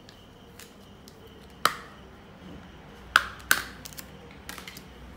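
Plastic back cover of a Samsung Galaxy J3 Pro snapping loose from its clips as it is prised off: a sharp click, then two more in quick succession about a second and a half later, followed by a few faint ticks.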